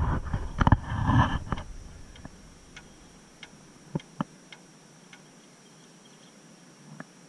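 Baitcasting reel being cranked against a heavy hooked lake sturgeon, with the rod bent hard. A burst of reel and rod-handling noise lasts about the first second and a half, then a few scattered light ticks.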